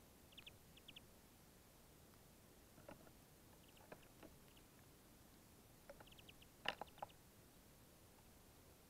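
Small finches and sparrows feeding on sunflower seeds: scattered sharp clicks and taps of beaks pecking and cracking the seeds, the loudest a little past the middle, with brief runs of quick, high chirps near the start and again just before the loudest clicks.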